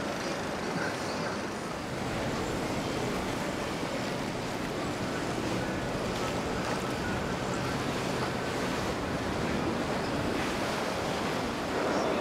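Steady wash of water, with wind noise on the microphone.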